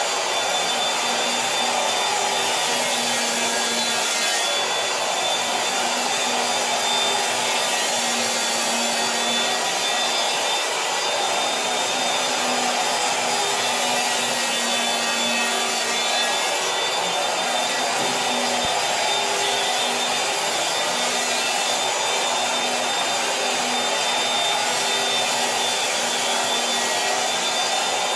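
Electric power planer running steadily as it shaves the rail of a surfboard foam blank, a continuous even noise with a low hum that breaks off now and then.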